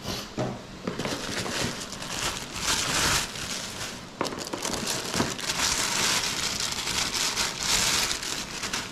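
Clear plastic packaging crinkling and rustling in the hands as MX goggles and their accessories are unwrapped, with a couple of light knocks about halfway through.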